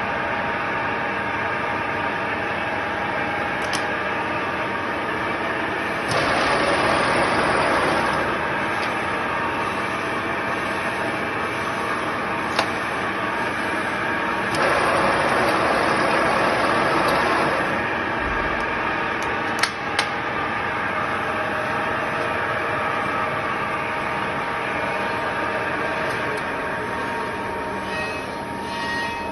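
A 1989 Kuson-3 lathe running steadily, its motor and gearing giving a constant hum of several tones. Twice, about six seconds in and again about fifteen seconds in, a louder rasping noise comes in for two or three seconds. A few sharp clicks sound along the way.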